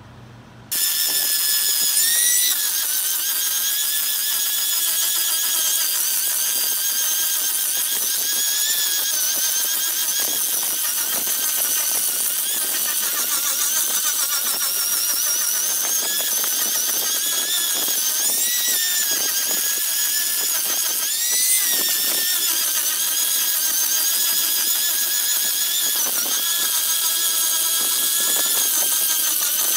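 Electric angle grinder with an abrasive disc sanding the edge of laminated plywood. It cuts in abruptly about a second in, then holds a loud, steady high whine over a gritty hiss. The pitch wavers and dips briefly a few times as the disc is pressed into the wood.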